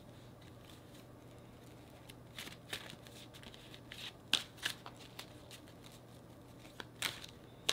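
A deck of tarot cards being shuffled by hand: after about two seconds of quiet, a run of irregular soft snaps and riffling flicks as the cards slide and knock together.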